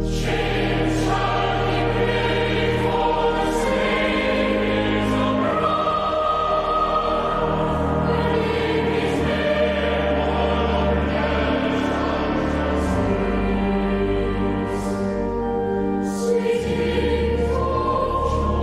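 A choir singing a Christmas carol in slow, sustained chords, over deep held bass notes from an accompanying instrument.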